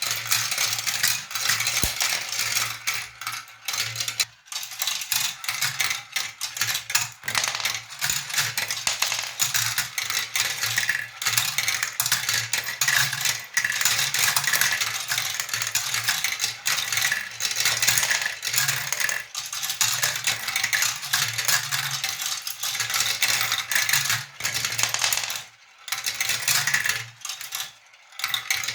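Glass marbles rolling and clattering along a marble run track: a continuous rapid patter of small hard clicks, with a low steady hum underneath. The clatter briefly drops away twice near the end.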